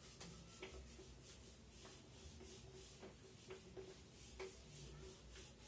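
A felt whiteboard duster wiping a whiteboard clean in quick, repeated strokes, with a faint hiss on each stroke.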